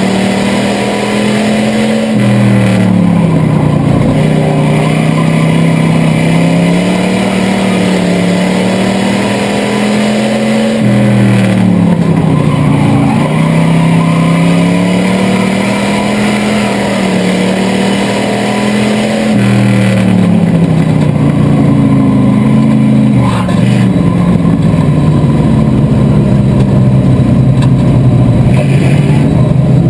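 Chevrolet 305 V8 of a bomber-class stock car at racing speed, heard from inside the cockpit. The revs climb steadily along each straight and drop sharply as the driver lifts for the turns, three times, about every eight or nine seconds.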